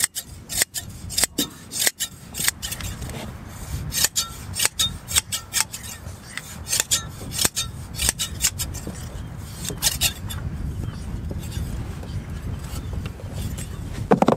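Hand blade shears snipping through a sheep's fleece: a run of sharp metal snips, about two a second, growing sparse in the last few seconds, as the wool is clipped off by hand.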